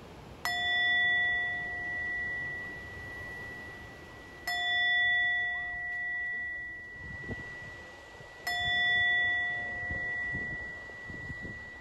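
A meditation bell struck three times, about four seconds apart, each strike ringing out slowly with a clear tone and higher overtones. The bells mark the start of the breathing exercise.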